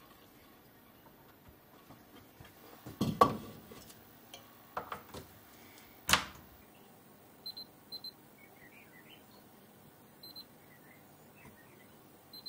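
Handling noise: a few knocks and sharp clicks as parts and a mains plug are handled around a valve-amplifier chassis, the loudest knock about three seconds in. In the second half, several short high electronic beeps, some in pairs.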